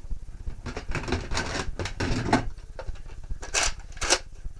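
Handling noise from plastic toy dart blasters: a run of clicks and knocks, with a few short rustling swishes in the second half.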